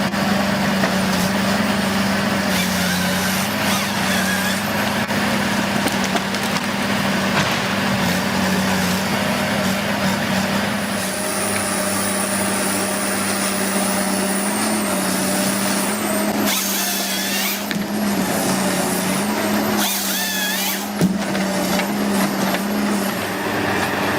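Machinery running steadily with a constant hum and hiss, joined twice in the second half by a brief shrill, wavering noise.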